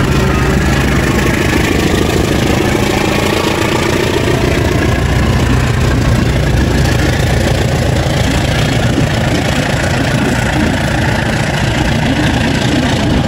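Diesel-electric locomotive pulling a passenger train away from the station under power, its engine running steadily and loud as it passes, followed by the carriages rolling by on the rails.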